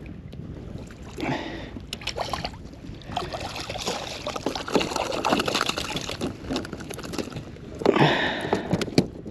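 Water splashing and sloshing at the side of a kayak as a hooked fluke (summer flounder) is brought up, with a busy run of small splashes through the middle few seconds.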